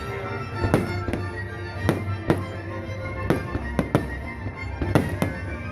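Fireworks bursting in the air, about ten sharp bangs at irregular intervals, over music playing steadily beneath them.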